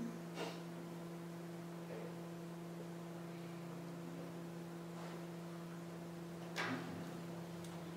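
Steady electrical hum made of two low tones, with a few soft clicks, the loudest about six and a half seconds in.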